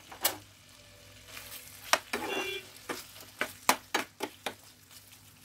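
Metal spatula stirring chicken pieces in a wok of oily masala, with irregular scrapes and clicks of metal on the pan over a faint sizzle of the oil.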